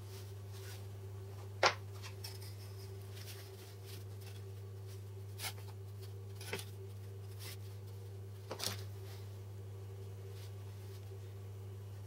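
A few sharp taps and clicks as a steel ruler, pencil and MDF board are handled and set down on a wooden table. The loudest tap comes about two seconds in. A steady low electrical hum runs underneath.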